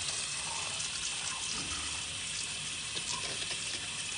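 Water spraying steadily from a handheld sprayer hose onto a wet dog's fur in a tub.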